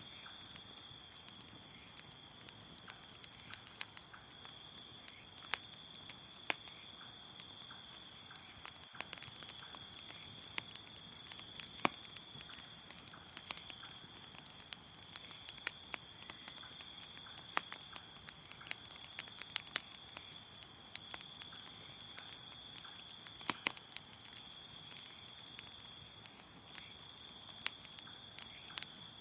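Crickets chirping in a steady, unbroken high trill, with a bonfire crackling over it in scattered sharp pops.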